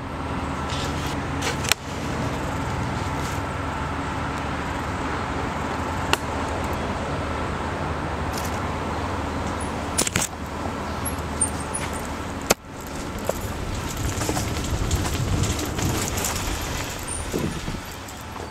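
Steady rumble with a faint steady hum, as a helmet-taped camera picks it up while riding a trail. A few sharp knocks break in about 2, 6, 10 and 12 seconds in, and after the last one the rumble turns rougher and uneven.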